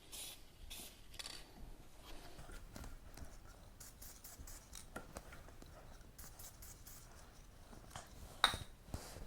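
Short hissing bursts of aerosol chain wax sprayed onto a motorcycle drive chain, a few in quick succession near the start and again in the middle, with light ticks and scrapes of handling between them and a sharp knock near the end.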